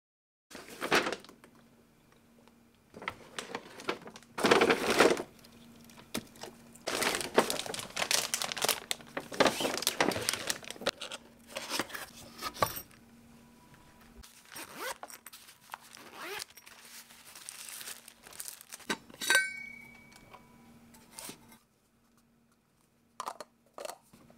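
Rustling and crinkling in irregular bursts, with a brief squeak about three-quarters of the way through, over a faint steady hum.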